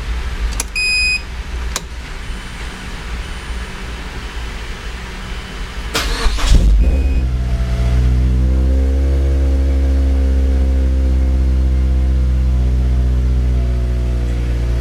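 A supercharged 2008 Mazda MX-5's four-cylinder engine being started: a short electronic beep about a second in, then about six seconds in the starter cranks briefly and the engine catches and settles into a steady idle.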